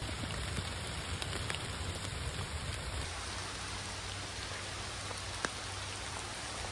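Steady rain falling on the forest's leaves, a continuous hiss with a few sharp drip taps, one of them louder about five seconds in.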